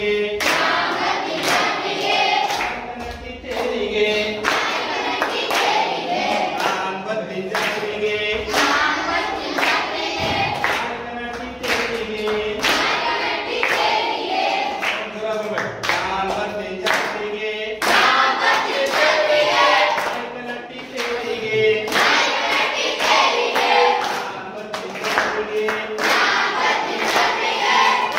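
A group of schoolchildren singing a Kannada action song together, with hand claps in time.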